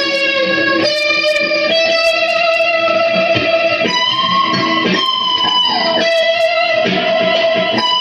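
Electric guitar playing a slow lead line of long, sustained notes, with a downward slide to a lower note about six seconds in.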